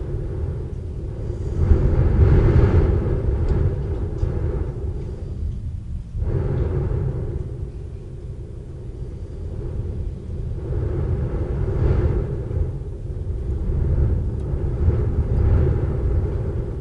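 Thunder rumbling in long rolling swells over steady rain. It is loudest about two seconds in, and swells again twice later on.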